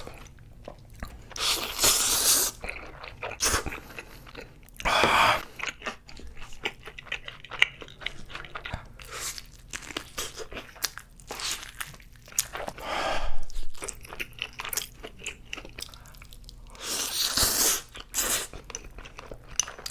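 Close-miked eating sounds: crunchy bites and chewing coming irregularly, with several longer noisy bursts of about half a second to a second.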